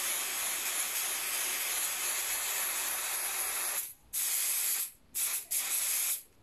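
Motul MC Care A2 air filter oil sprayed from an aerosol can onto a foam motorcycle air filter to impregnate it: one long spray of nearly four seconds, then three shorter bursts.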